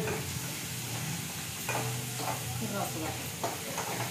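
Tamarind-water mixture sizzling in a pan as it cooks down and thickens, stirred with a spoon that scrapes and clicks against the pan a few times near the end.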